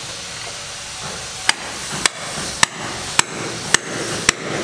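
Hammer blows on a building site: six sharp, evenly spaced strikes, about two a second, starting about a second and a half in, over a steady hiss of site noise.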